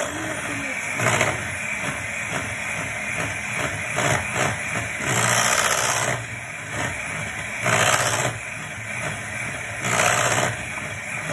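Electric hand mixer running with its beaters whipping thick cheesecake batter, the whirring swelling louder now and then as the beaters are moved through the bowl.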